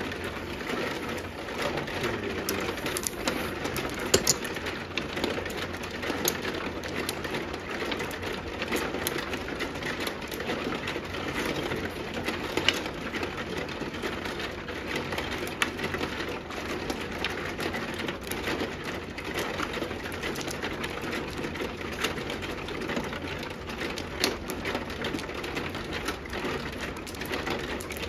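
Plastic mahjong tiles clicking and clacking on an automatic mahjong table's felt as players draw and discard in turn: a steady run of light clicks with a few louder knocks.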